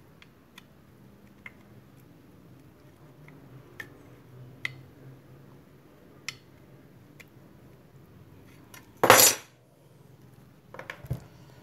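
Light metallic clicks and taps of a flat metal tool against the steel stator core as the slot insulation films are pressed down into the slots. About nine seconds in comes a louder noise lasting half a second, then a few knocks near the end.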